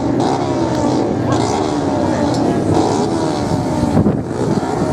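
Several racing motorcycle engines running hard at once, their pitches rising and falling as the bikes accelerate and change gear.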